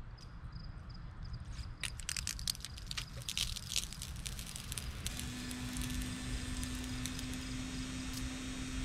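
Orbit Saturn 3 pop-up sprinkler head starting up, sputtering and crackling as air and water spit from the line. About five seconds in it settles into a steady hiss of spray with a low hum.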